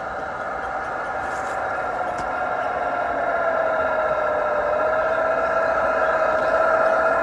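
RC 6x6 scale crawler truck driving toward the microphone over a muddy trail: a steady whine from its motor and gears that dips slightly in pitch midway and grows louder as it approaches.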